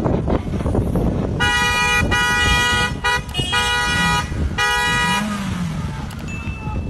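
A vehicle horn honking, about four blasts in a row, over a steady low engine rumble.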